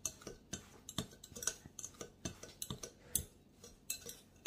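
A fork stirring graham cracker crumbs and melted butter in a glass mixing bowl: irregular light clicks and scrapes of the tines against the glass, several a second.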